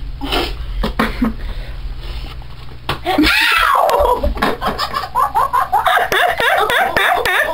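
Rumble and knocks of the camera being handled for the first few seconds, then a girl's voice sliding down in a long squeal about three seconds in, followed by girls laughing.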